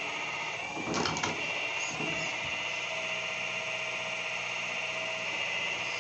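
Radio-controlled excavator running, its motor giving a steady high whine with a low hum beneath, and a brief clatter about a second in.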